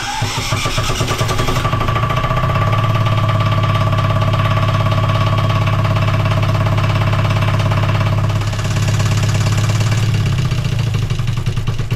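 Sailboat's inboard engine running steadily at idle, heard up close in its open engine compartment.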